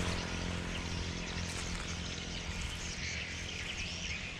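Small birds chirping: many short, quick chirps scattered throughout, over a steady low hum.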